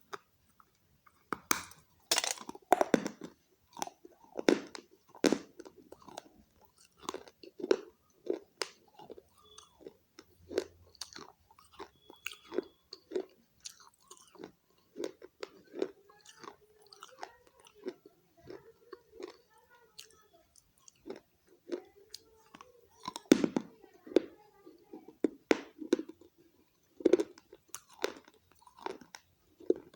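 A person biting and chewing pieces of baked red clay, with sharp crunches at irregular intervals between softer chewing; the crunches are loudest about two seconds in and again near twenty-three seconds.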